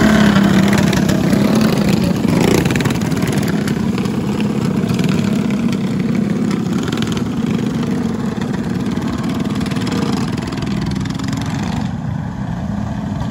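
A pack of go-kart engines running together at racing speed, loudest as the karts pass close at first, then gradually fading as they move away around the track.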